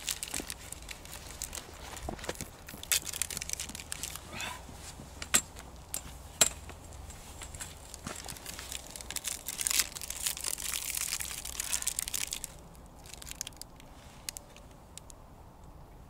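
Wrapper of a chocolate-coated halva bar crinkling and rustling as it is unwrapped and handled, with a few sharp cracks. The crinkling dies down for the last few seconds.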